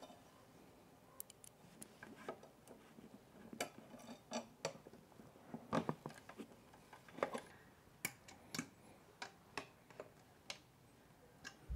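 Faint, irregular metal clicks and ticks of a hex key working a small bolt on an e-bike frame, as the bolt is removed and put back.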